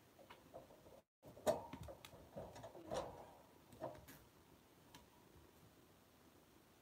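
Faint, irregular clicking and smacking from kittens suckling at their mother, bunched between about one and a half and four seconds in, after a brief dropout to silence about a second in.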